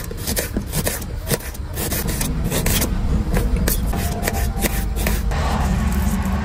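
Small knife cutting through red onions, a quick irregular run of crisp cuts and scrapes as the pieces drop into a steel bowl. About five seconds in it gives way to softer scraping of a knife peeling garlic cloves. A steady low hum runs underneath throughout.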